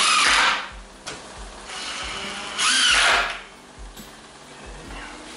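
Cordless drill driving screws into a wooden 2x4 frame through a metal hinge: two short runs, the first ending about half a second in and the second about two and a half seconds in, the motor's pitch rising and falling as each screw is driven.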